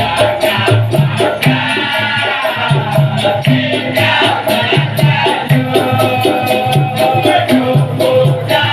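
Dikir barat music: drums beat a steady rhythm with maracas shaken on every beat, and a pitched melody line runs over the top.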